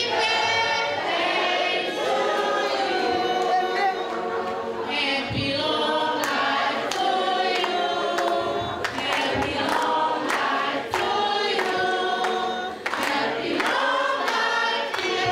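A crowd of mixed voices singing together in chorus, holding long notes.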